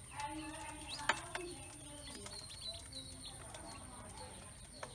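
A brood of ducklings peeping as they feed from a dish in a metal basin. There is a sharp click about a second in.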